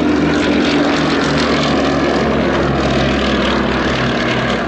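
Westland Lysander's Bristol Mercury nine-cylinder radial engine and propeller running steadily and loudly in flight, the engine note shifting a little in pitch.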